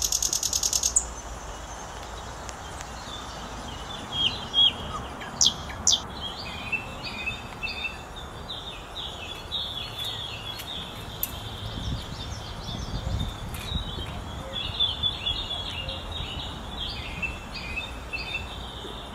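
Songbirds chirping in quick series of short, repeated notes, with a brief high buzzing trill in the first second.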